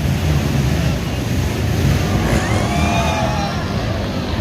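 Racing ATV engines running over a loud, steady rumble, with revs rising and falling in pitch about halfway through.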